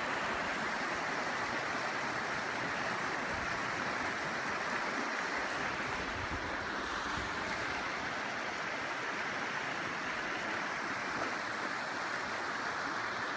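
Small creek running steadily over rocks, a constant rushing water sound.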